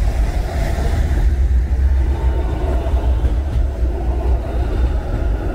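Toronto TTC Flexity Outlook low-floor streetcar passing close by on its rails, a deep steady rumble, with car traffic on the wet road.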